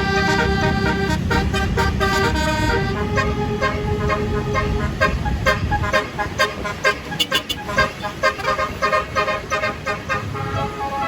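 A tour bus's Basuri 'telolet' multi-tone horn playing a tune of held, stepping notes over the bus engine's rumble. About six seconds in, the rumble drops away and the horn plays quick, short notes.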